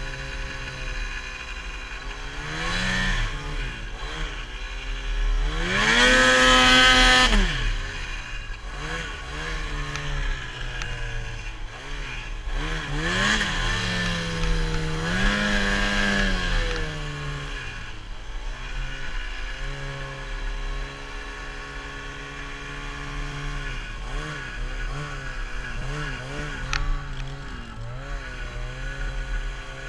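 Lynx Boondocker 800 snowmobile's two-stroke engine revving up and down under load while riding through deep powder. The loudest full-throttle surge comes about six seconds in, with more revs near the middle.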